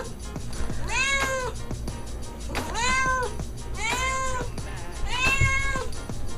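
A pet's drawn-out, meow-like cries, about five of them, each under a second, rising and then falling in pitch. A steady low background bed runs beneath them.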